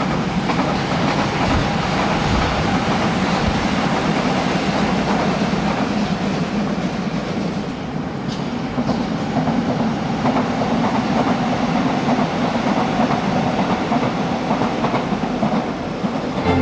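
Electric subway train running on an above-ground stretch of track, a steady rumble with wheels clattering over the rails.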